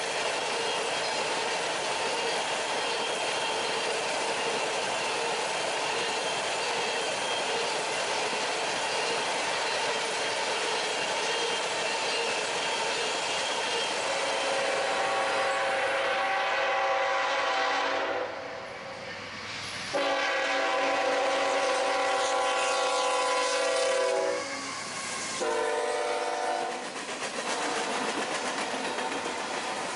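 Norfolk Southern freight train rolling past with steady wheel-on-rail clatter. About halfway through, a locomotive air horn sounds four blasts, two long, one short and one long: the grade-crossing warning signal.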